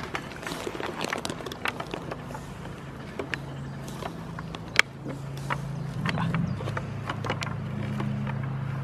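Goats crunching animal crackers close up: many sharp, crisp clicks, one much louder about five seconds in. A steady engine hum comes in after about three seconds and grows louder.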